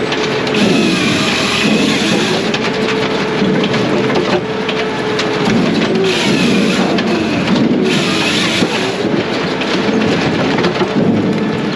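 Brute Force USA 18-24HD diesel firewood processor running, its steady pitch sagging and recovering several times as the machine comes under load while it cuts and splits hardwood logs.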